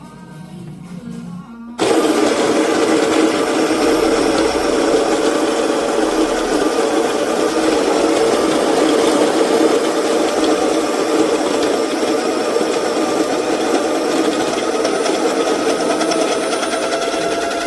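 Baratza Encore ESP electric burr coffee grinder switching on about two seconds in and running steadily, grinding beans. Its pitch rises slightly near the end.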